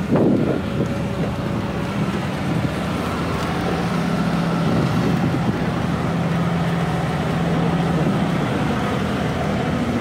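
A vehicle engine running steadily: a low hum that grows a little stronger midway and eases near the end, with a brief knock at the very start.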